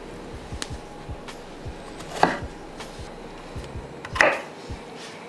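Chef's knife cutting down through a stack of thin raw potato slices onto a wooden cutting board: two firm, crunchy chops about two seconds apart, with a few light knife taps between them.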